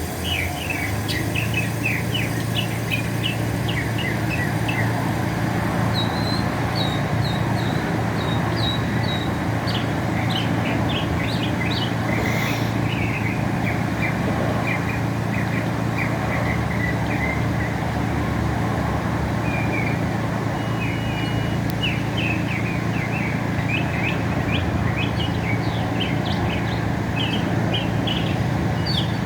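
Northern mockingbird singing: long runs of short, quick chirping notes, changing from phrase to phrase, over a steady low rumble.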